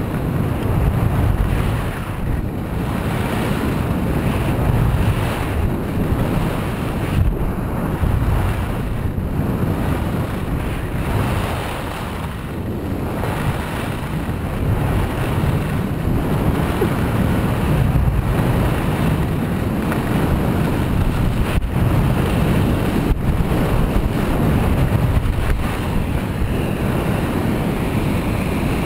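Wind rushing over the microphone of a skier's camera, with skis scraping and carving on groomed snow. The sound swells and dips every couple of seconds as the skier turns.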